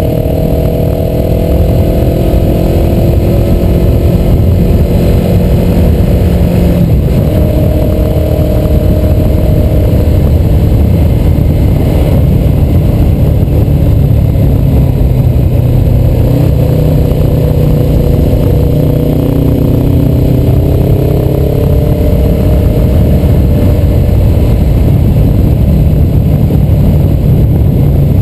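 Suzuki motorcycle's engine roar heard from on board while riding, its pitch rising and falling as the bike speeds up and slows through the bends. Steady wind rush on the microphone runs underneath.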